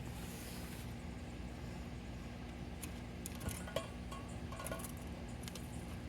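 Steady low rumble and hiss, with a handful of light metallic clinks and ticks in the middle.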